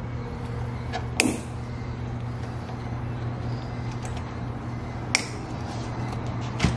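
Cable-tie tails being snipped off flush with cutters: three sharp snips, the loudest about a second in and two more near the end, over a steady low hum.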